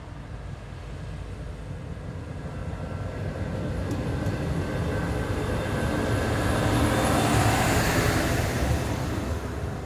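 Arriva class 845 Regio-Shuttle diesel railcar train running past close alongside the platform. The engine and wheels rumble louder and louder, peak about eight seconds in as the cars go by, then ease off.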